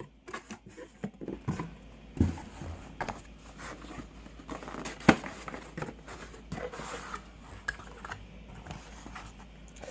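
Unpacking noises: rustling packaging and small clicks and knocks as accessories and cables are handled, with a thump about two seconds in and a sharp click about five seconds in.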